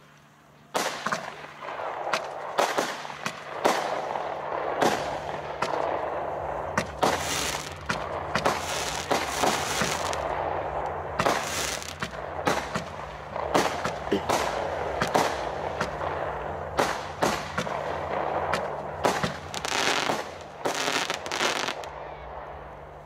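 A 19-shot, 20 mm consumer firework battery (Moon Explorer) firing. Sharp bangs follow one another with a hissing crackle between them. They start about a second in and go on for about twenty seconds.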